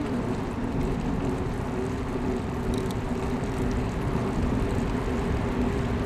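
Road buzz of a bicycle rolling on wet pavement, picked up through a handlebar-mounted microphone: a steady rushing noise with a low, even hum.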